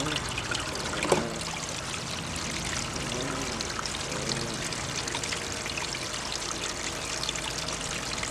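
Water from a hose running steadily down an aluminium gold sluice, with one sharp knock about a second in as a wooden block is set at the sluice head to steer the flow.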